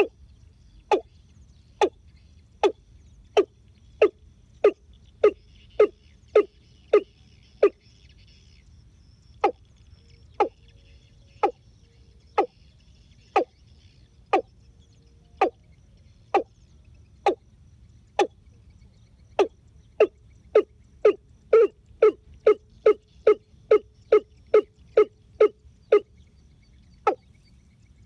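Watercock calling: a long series of sharp, hollow knocks about one a second, with a short pause about eight seconds in, quickening to about two a second later on.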